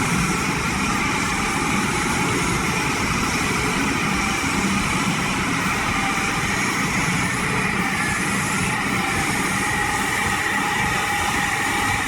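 Altai TT-4 crawler logging tractor running, a steady engine noise with faint whining tones above it.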